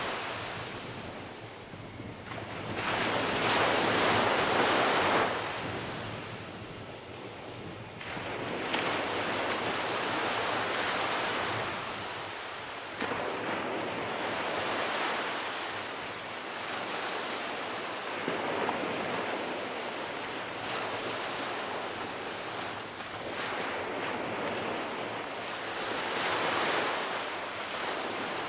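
Small ocean surf breaking and washing up a sand beach, swelling and fading every few seconds, with the loudest wash a few seconds in.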